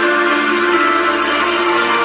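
Loud music played through a sonido (mobile DJ sound system), with long held tones.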